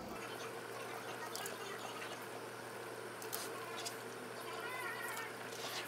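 Pot of shrimp caldo simmering on the stove: a quiet, steady bubbling of the broth with a few soft pops.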